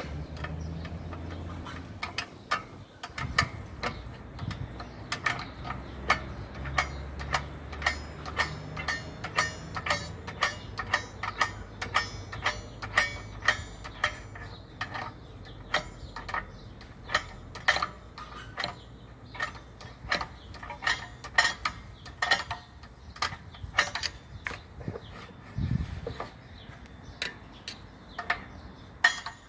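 Nissan X-Trail rear handbrake shoe adjuster clicking over and over as it is turned with a screwdriver through the access hole in the brake disc, setting the handbrake shoes; the sharp, irregular clicks come about one to two a second. A low steady hum runs under the first ten seconds.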